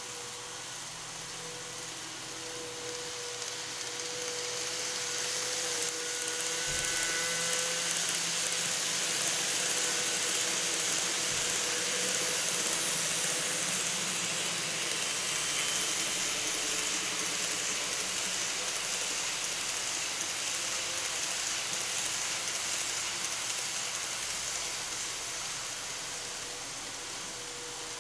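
Kato model trains rolling along plastic track: a steady rushing hiss of small wheels on rail with motor noise, growing louder over the first dozen seconds as a lit commuter-train model passes close, then slowly fading as it runs away around the curve.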